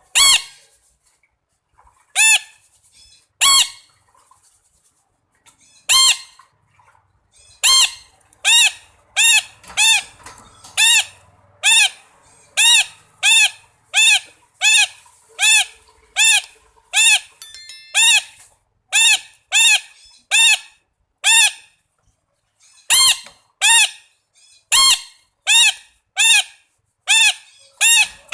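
Red-breasted parakeet giving loud, short calls, each rising then falling in pitch. A few calls come seconds apart at first; from about eight seconds in they run at about one and a half a second, with a short pause near the end.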